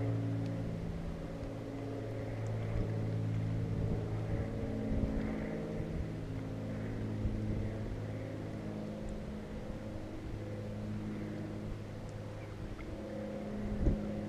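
An engine droning at a steady pitch that drifts slightly, with a single low thump near the end.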